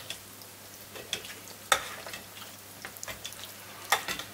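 Spoon stirring dark chocolate melting in a metal bowl over a pot of hot water, with a few sharp clinks of the spoon against the metal, the loudest near the middle, over a faint steady hiss.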